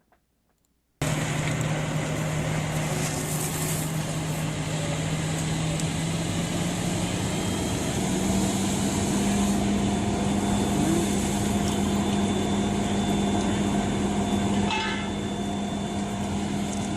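Steady outdoor noise with a low engine hum running through it, starting abruptly about a second in; the hum steps up in pitch partway through.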